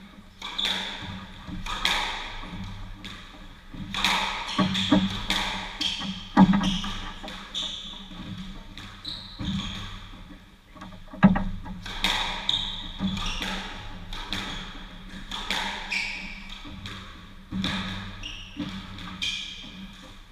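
Squash rally: the ball cracking off rackets and the court walls in quick succession, roughly one or two sharp hits a second, ringing briefly in the enclosed court.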